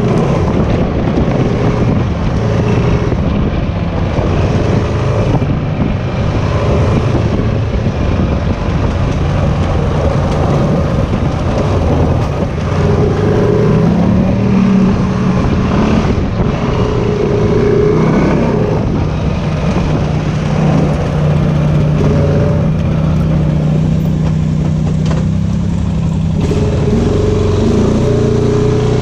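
Off-road vehicle engine running on a trail ride, its pitch rising and falling with the throttle and holding steady for several seconds in the second half.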